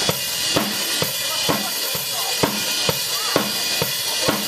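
Drum kit being soundchecked: a steady beat of bass drum and snare, about two hits a second, over a constant high hiss.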